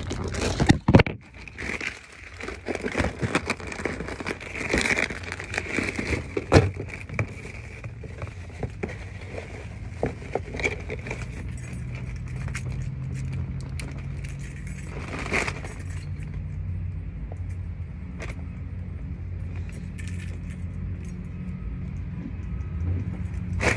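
Handling noise from a phone carried in the hand: clicks, knocks and jingling rattles, busiest in the first seven seconds, over a steady low hum.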